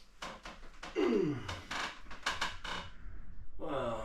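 A man stirring awake with a series of rustles and knocks, a groan that falls steeply in pitch about a second in, and a short sigh-like breath near the end.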